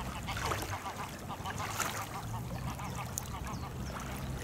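Geese calling in flight, a quick run of short, repeated honks, several a second, over a low steady hum.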